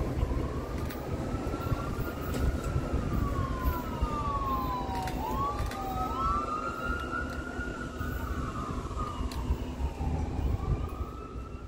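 Emergency vehicle siren wailing off in the distance, its pitch slowly sliding up and down, over a low rumble.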